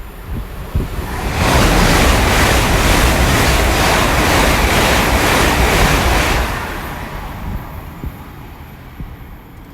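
Express passenger train passing through the station at speed: a loud rush of air and wheel-on-rail noise that swells about a second in, holds for about five seconds with a faint regular pulsing as the coaches go by, then falls away.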